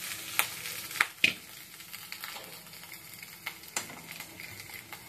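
Food sizzling in hot oil in a pan, with several sharp clinks of the stirring spoon against the pan.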